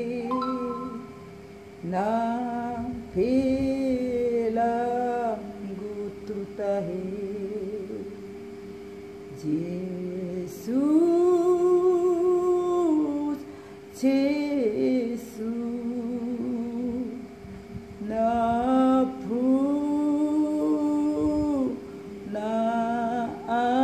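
A woman singing a slow Batak hymn solo, in long held phrases with short pauses between them, over a faint steady hum.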